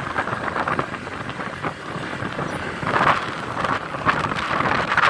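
Wind buffeting the microphone on a moving motorbike, a rough rushing noise with stronger gusts about three seconds in and again near the end.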